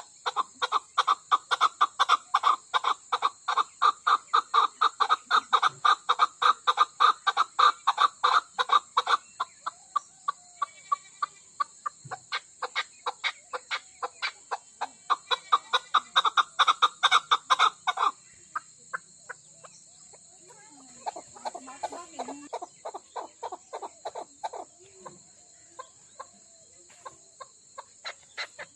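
Chukar partridge calling: long runs of rapid clucking notes, about five a second. The runs are loudest at the start and again past the middle, with a softer, lower run near the end.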